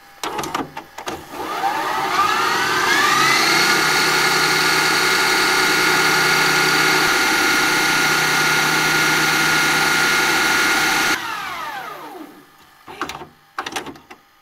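A few mechanical clicks, then a motor whine that rises in pitch over about two seconds and holds steady over a hiss. The whine winds down, falling in pitch, about eleven seconds in, and a few more clicks follow.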